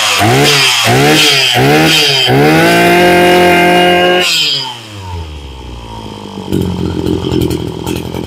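Maruyama BIGM KC20NX 20cc two-stroke brush cutter engine revved with about five quick throttle blips, then held at high revs for about two seconds before dropping back to idle. The quick pickup shows the engine to be very responsive.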